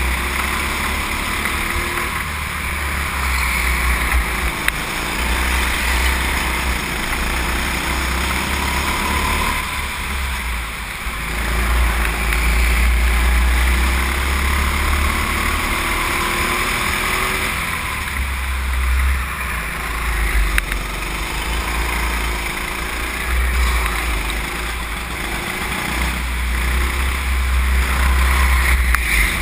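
Go-kart's small petrol engine running under the driver as the kart laps, its pitch rising and falling with the throttle through the corners. A heavy low rumble comes and goes from wind buffeting the onboard microphone.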